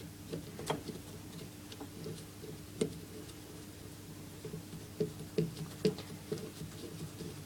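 Scattered small clicks and taps of a spanner and a compression fitting being handled as the pipe, olive and nut are put back into an isolator valve, with the clearest knocks near three seconds and a cluster between five and six seconds.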